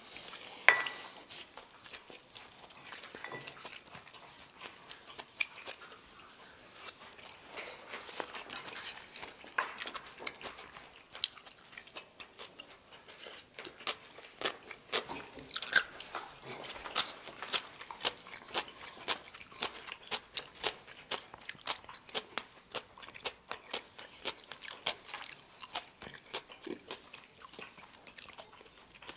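Eating sounds: chewing and crunching of food, with many small clicks of chopsticks and a spoon against bowls and plates. A sharp ringing clink about a second in.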